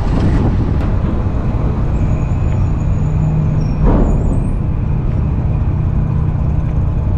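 Steady low drone of a river car ferry's engine running, with wind noise on the microphone. A brief, louder rush of noise comes about four seconds in.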